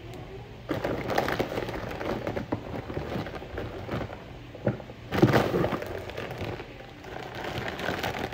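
Plastic snack bags rustling and crinkling as they are handled, with a louder crackle about five seconds in.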